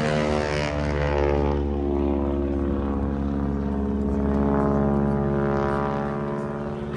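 Propeller airplane passing overhead: a steady engine-and-propeller drone whose pitch drops slightly in the first second, then holds, easing off a little near the end.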